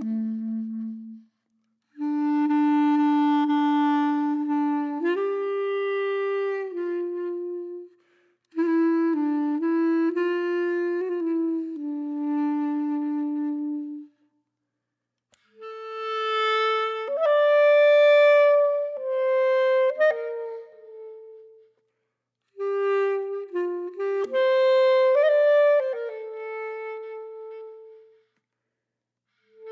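Background music: a single melody line of held notes, played in phrases separated by short silent gaps.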